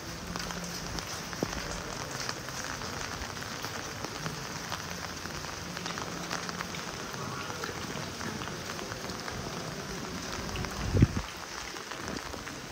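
Steady rain falling on wet cobblestones and umbrellas: an even hiss with many small drop ticks. A single low thump comes near the end.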